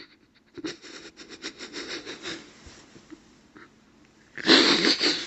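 A man breathing between sentences: faint breaths, then a loud, sharp breath in near the end, just before he speaks again.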